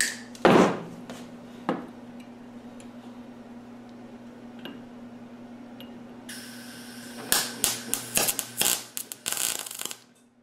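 Gas-shielded MIG wire-feed welder on a low setting laying a tack weld on steel: after a steady hiss begins, the arc crackles and sputters unevenly for about three seconds, then cuts off abruptly. A steady low hum runs underneath, with a few knocks near the start.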